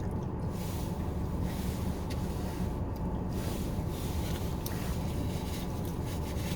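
Steady low hum inside a car cabin, with a couple of faint clicks.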